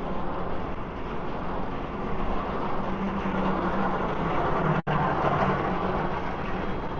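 City street noise with a motor vehicle's engine running close by, its low hum strongest in the middle seconds. The sound drops out for an instant just under five seconds in.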